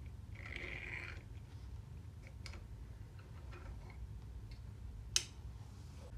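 Plastic and metal parts of a 3D-printed roller-screw actuator being handled and pulled apart: faint scattered clicks and ticks, a short rasping burst about half a second in, and one sharp click about five seconds in.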